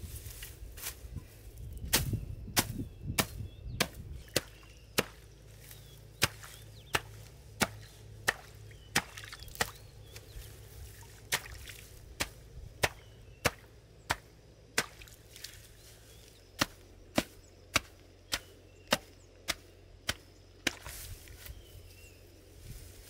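A pile of freshly cut leafy green plants being pounded against stream-bed rocks with a wooden stick and a hand-held stone. The sharp knocks come evenly, about one and a half a second, with a short break near the end.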